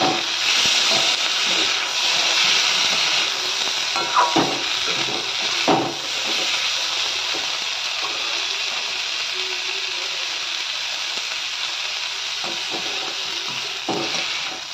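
Chopped onion, tomato, capsicum and green chili sizzling in oil in a metal kadai, a steady frying hiss. A spatula scrapes and knocks against the pan a few times: at the start, around four and six seconds in, and near the end.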